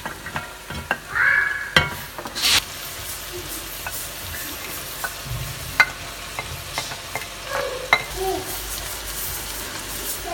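Vegetables sizzling in oil in an enamelled pot as diced carrots, celery and garlic are scraped in off a plate with a wooden spoon and stirred, with scattered sharp knocks of spoon and plate against the pot.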